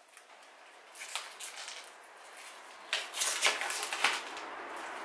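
Cardboard packaging of a makeup palette being handled and opened: rustling and scraping in short bursts, once about a second in and louder again from about three to four seconds in.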